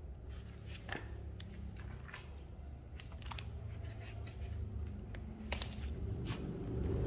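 Scattered light clicks and taps over a steady low hum, the hum growing louder near the end.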